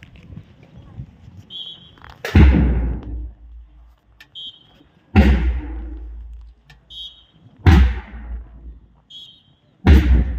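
Four loud beats about two and a half seconds apart, each a sudden hit with a deep boom that dies away over about a second and a short high beep just before it, keeping time for the drill movements.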